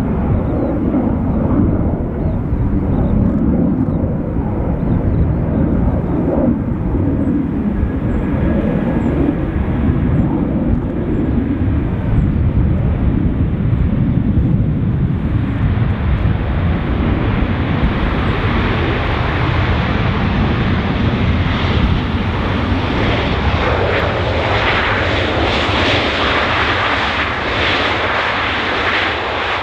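Boeing 737 jet landing: a steady low engine rumble on approach, then, about halfway through, a louder rushing noise spreading higher in pitch as it rolls out on the runway, typical of reverse thrust after touchdown.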